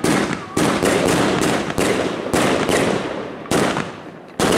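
Evolution Fireworks Euphoria 100-shot firework cake firing: about ten sharp shots in quick, uneven succession, each dying away before the next, with longer gaps near the end.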